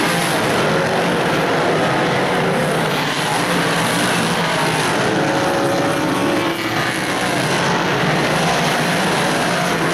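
Pack of big-block modified race cars' V8 engines at full throttle, several running at once, their pitches rising and falling as cars pass down the straight and lift for the turns.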